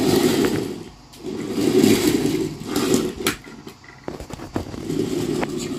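Plastic toy train's wheels rolling along a wooden floor as it is pushed back and forth, a rumble that comes and goes in several pushes. A few sharp clicks sound in the middle, when the train is still.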